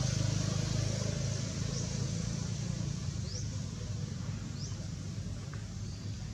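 A steady low hum with a background hiss, with three or four faint, short rising chirps spaced a second or so apart.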